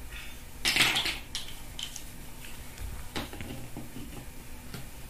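Plastic interlocking toy building blocks clicking and clattering as pieces are handled and pressed together, with a loud burst of clatter about a second in and then scattered single clicks.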